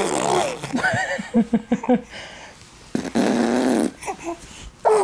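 Baby boy making a new raspy, throaty vocal noise: a rough sound at the start, a quick run of about five short grunts, then a longer gravelly rasp about three seconds in, and a pitched voiced sound starting near the end.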